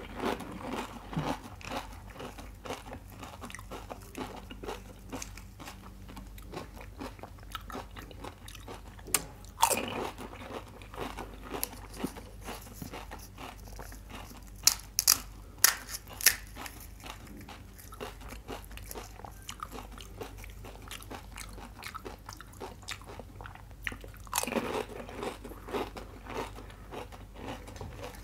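Close-miked crunching and chewing of crisp pani puri shells. Three louder bites stand out, one as it begins, one about ten seconds in and one near the end, with a few sharp clicks in between.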